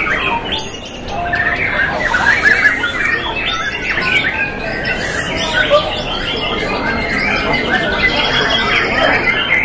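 Many young white-rumped shamas singing at once from their cages: a dense, overlapping mix of whistled phrases, rattles and chattering calls.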